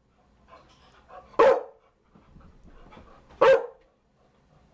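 Chow Chow dog barking: two single, short barks about two seconds apart, with faint quieter sounds between.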